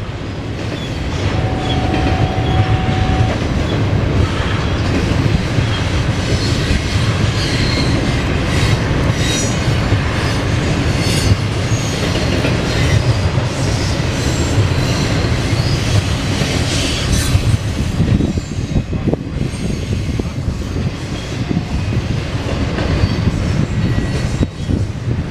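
Norfolk Southern intermodal freight train rolling past at close range: a loud, steady rumble and clatter of wheels on rail, with rail-joint clicks and high wheel squeal at times.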